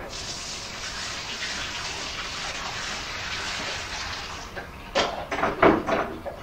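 Water running from a tap in a steady stream for about four and a half seconds, then shut off, followed by a few sharp knocks and clatters.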